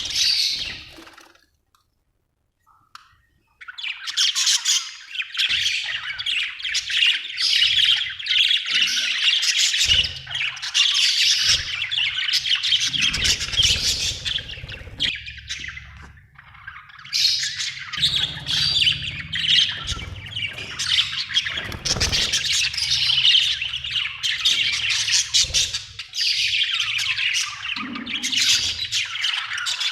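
Budgerigars chattering and chirping in a fast, dense stream of squawks and tweets. It breaks off briefly near the start, then resumes about four seconds in and runs on almost without a pause.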